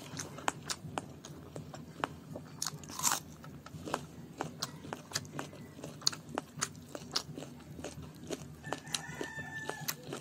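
Close-up eating sounds: chewing with many short sharp clicks, and fingers mixing rice and chicken curry on a steel plate, with one louder crunch about three seconds in. Near the end a rooster crows in the background.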